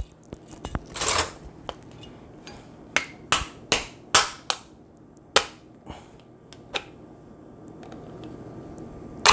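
About a dozen sharp, irregular clicks and taps, with a short rustle about a second in, from hands working at opening a new container of seasoning.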